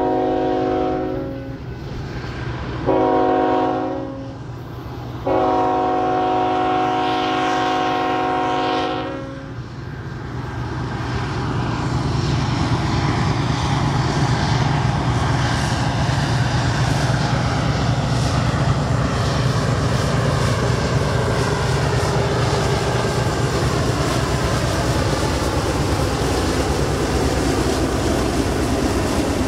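Freight locomotive air horn sounding its grade-crossing signal: the end of a long blast, a short blast, then a long blast of about four seconds. The lead diesel locomotives then pass close by, and the loaded coal cars roll past with a steady heavy rumble of wheels on rail.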